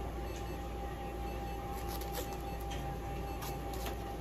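Steady low electrical hum with a faint steady high tone, and a few soft clicks and rustles as tape on a cat's bandaged foreleg is handled.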